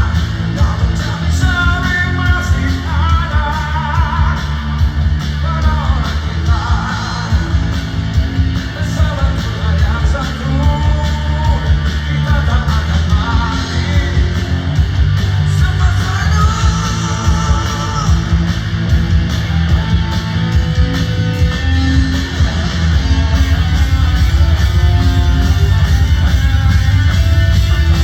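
Live rock band playing amplified through a stage PA, with a singer over electric guitar, bass and drums. The playing gets louder and fuller near the end.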